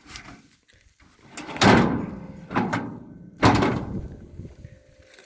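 Steel cab door of an old Ford F6 truck being worked open: several heavy clunks and bangs from the latch and door, the two loudest about a second and a half and three and a half seconds in.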